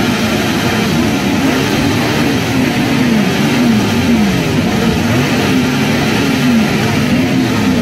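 Many motorcycle engines revving together, their overlapping notes rising and falling over and over without a break: bikers giving a revving farewell salute.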